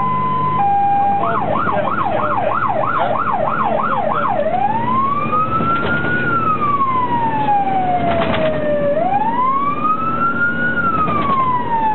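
Fire engine's electronic siren, heard from inside the cab of a Mercedes-Benz Atego GCBA 4/32 on an emergency run: a two-tone hi-lo pattern, switching about a second in to a fast warble, then about four seconds in to a slow wail that rises and falls twice. The truck's diesel engine runs underneath.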